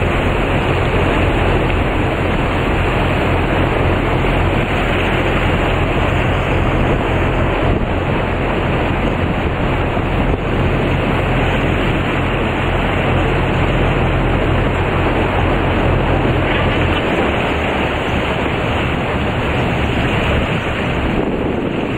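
A boat's engine running with a steady low hum, under wind on the microphone and rushing water. The engine's hum drops away about seventeen seconds in.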